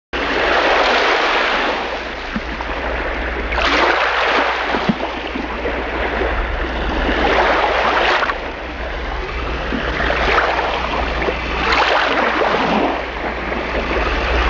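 Sea surf breaking on a sandy beach, a continuous wash that swells as a wave comes in about every four seconds, over a steady low rumble.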